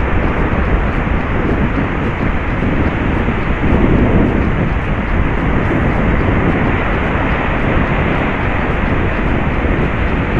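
Steady rumbling wind noise buffeting a small camera microphone on an open surf beach, mixed with the wash of breaking waves.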